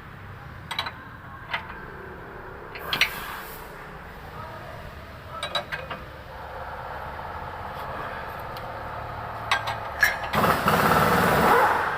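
Sharp metallic knocks and clanks from tools working on a car's front suspension. Near the end comes a loud rushing burst of about two seconds.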